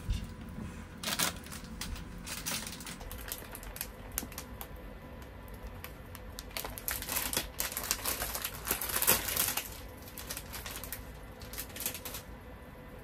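Thin plastic wrapper of a packaged cream puff crinkling and tearing as it is opened by hand: a run of crackles that is busiest in the middle and stops near the end.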